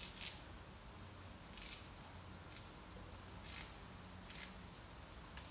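Leafy greens being stripped from their stems by hand: short, sharp rustling snaps, six or so at irregular intervals of about a second.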